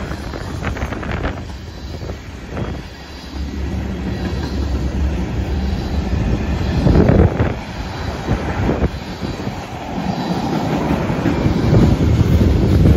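Freight train cars, mostly tank cars, rolling past: a steady rumble with the clatter of wheels over the rails, swelling louder about seven seconds in and again near the end.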